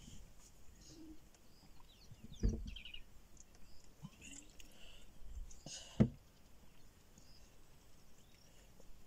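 Faint bird chirps over quiet outdoor background, with a quick run of chirps about two and a half seconds in and a few more around four seconds. Two short dull knocks stand out, the louder one about six seconds in.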